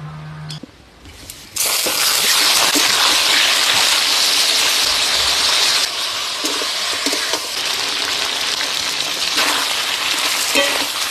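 Food sizzling in hot oil in a cooking pan, a loud hiss that starts suddenly about a second and a half in and eases a little around six seconds in, with a few light clicks later on.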